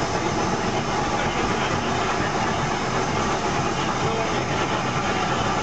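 Steady, loud mechanical noise of the LNER Class A4 steam locomotive Sir Nigel Gresley working, heard on the footplate beside the open firehole.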